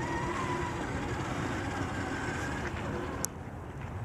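Redcat Gen 8 RC crawler's electric motor and gears whining, the pitch wavering with the throttle, over a steady rush of water and wind. The whine fades out about three seconds in, followed by a sharp click.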